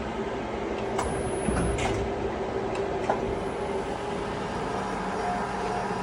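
CNC sheet-metal folder running: a steady machine hum with a few clicks and a short high whine about a second in.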